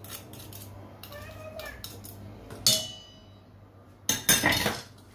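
A metal spoon strikes a stainless steel mixing bowl once, leaving a short metallic ring. About a second later a wire whisk beats the egg batter in the bowl in a burst of fast, loud scraping strokes.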